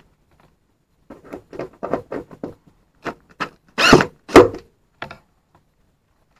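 Cordless drill-driver with a screwdriver bit run in short bursts against a porthole's inner frame, backing out its screws: about a dozen brief whirs and knocks, the two loudest about four seconds in.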